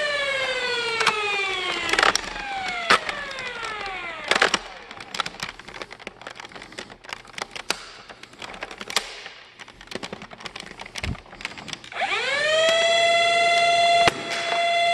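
Flywheel motors of a BlasterCore afterburner on a Nerf blaster whine at speed, then wind down twice in the first four seconds. They spin back up about twelve seconds in and hold a steady whine. Sharp clicks and knocks come in between as the blaster is primed and fired.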